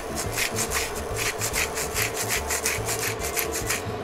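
Hand-twisted salt mill grinding salt, a fast run of rasping, crunching strokes about five a second, over a steady low hum.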